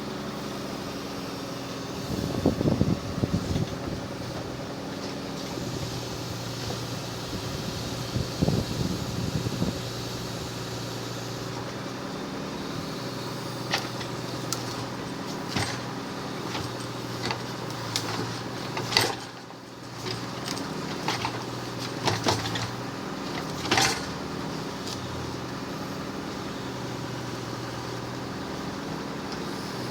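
Munck forestry crane's hydraulics and the engine driving them running steadily, working harder twice in the first ten seconds as the grapple takes a bundle of logs. In the second half, a run of sharp knocks and clunks from the load being handled.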